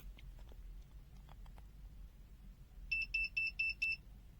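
A digital multimeter's buzzer gives a quick run of about six short, high-pitched beeps about three seconds in, after a few faint clicks from the test leads being handled.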